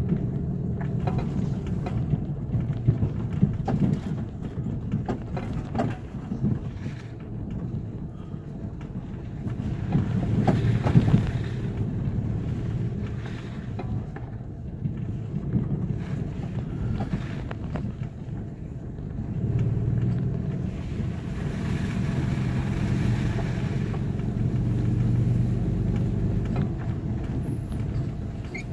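Toyota FJ Cruiser's V6 engine running at low speed on a rough dirt trail, heard from inside the cab, with scattered knocks and rattles as the truck bumps along. The engine swells louder a few times as it pulls through the ruts.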